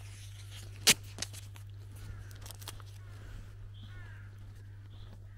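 Footsteps on a dirt village path, with a sharp click about a second in and a smaller one just after, and faint bird calls in the background over a steady low hum.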